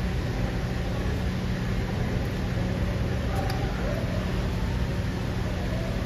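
A steady low mechanical hum with a constant hiss over it, unchanging throughout.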